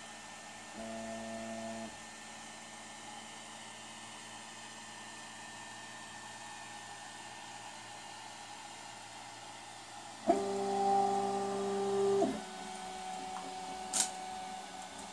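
Prusa i3 MK2S 3D printer's stepper motors whining as its axes move during the calibration test: a short move about a second in, a louder move of about two seconds near ten seconds, then a fainter tone. A sharp click sounds near fourteen seconds, over a steady hiss.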